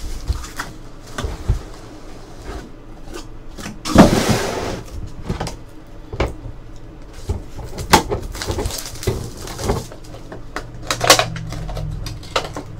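Cardboard trading-card case being opened and its hobby boxes taken out and set down on a table: scattered knocks and rustles, with a louder scrape about four seconds in.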